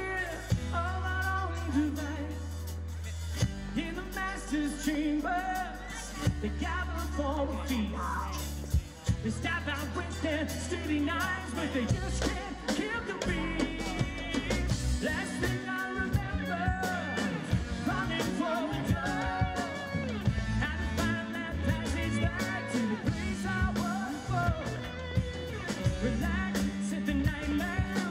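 Live pop-rock song: a man's lead vocal over acoustic guitar and long held bass notes, with the accompaniment filling out into a steady beat about twelve seconds in.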